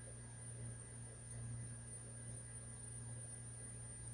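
Steady low electrical hum with faint, steady high-pitched whine tones over a light hiss: the background noise of a voice-over recording.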